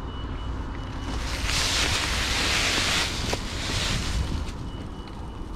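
Mountain bike riding a dirt trail: a steady low rumble of wind buffeting the camera microphone, with a loud hissing rush of tyres and air swelling from about a second in and dying away near four seconds.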